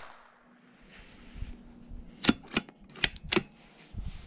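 Bolt of a Savage B22 Precision .22 LR rifle being worked by hand: a quick run of about five sharp metallic clicks a little over two seconds in, as the bolt is lifted and drawn back after a shot.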